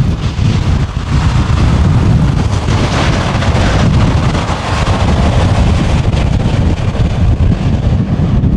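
Jet engines of a landing Boeing 787-9 airliner, swelling to a peak about three seconds in and then fading. Heavy wind buffets the microphone underneath.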